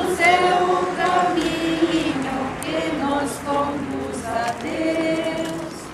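Procession congregation singing a Catholic hymn together, a slow melody of long held notes from many voices.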